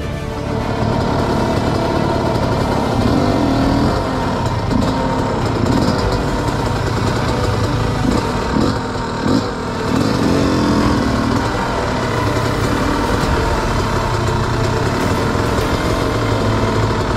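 Dirt bike engine running at low revs, its pitch rising and falling briefly a few times near the middle.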